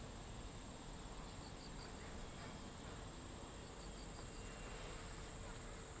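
Autumn insects calling: a steady high trill, with short chirps in groups of three or four about a second and a half in and again about four seconds in. Under them runs a faint low rumble from the slow-moving train cars rolling past.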